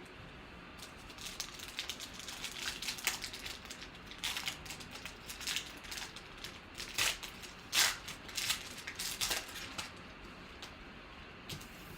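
Foil wrapper of a football trading-card pack being torn open and crinkled, in a run of irregular crackles that are loudest near the middle.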